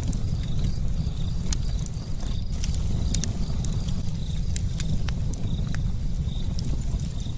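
Wood fire burning: a steady low rumble with frequent sharp crackles and pops.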